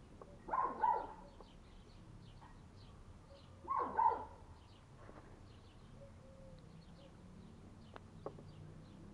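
A dog barking: two short double barks, about half a second in and about four seconds in, with faint high chirps of birds in the background.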